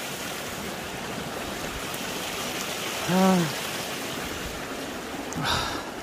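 Steady rushing of a mountain valley stream, with a short hummed vocal sound from a man a little past halfway.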